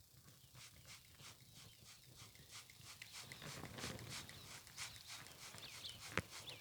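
A trigger spray bottle of fly spray spritzing in a quick, even series of short hissy squirts, about three a second. A few faint bird chirps come in near the end.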